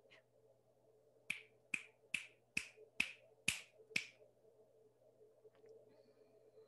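Seven sharp snaps in a quick run, about two a second, each dying away fast, over a faint steady hum.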